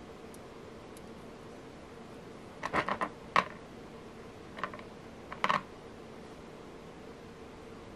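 Metal beads and lava-stone beads clicking against one another and on the hard worktop as they are handled and threaded onto a bracelet cord: a cluster of short clicks about three seconds in, and a few more around four and a half and five and a half seconds in.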